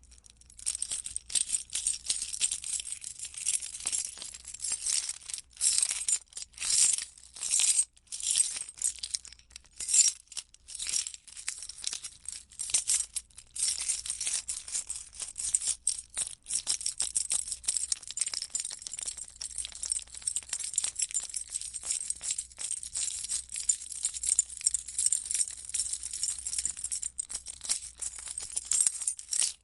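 A bunch of keys jingling as it is shaken and handled: an irregular run of bright metallic clinks that comes in bursts with brief pauses.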